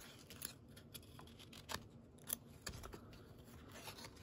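Trading cards being slid and flicked past one another by hand: quiet, scattered sharp clicks and soft rustles of glossy card stock.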